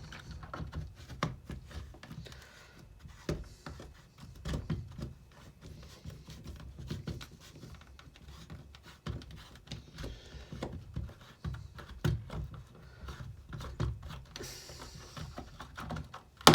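Small irregular clicks and light knocks of hands and a tool working on an old Black & Decker cordless drill as it is taken apart, with a short scrape near the end.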